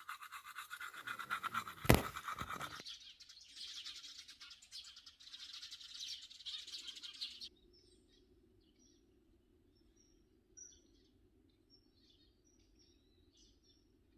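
Rapid rhythmic scrubbing with a sharp click about two seconds in; the scrubbing stops about seven and a half seconds in, leaving faint bird chirps.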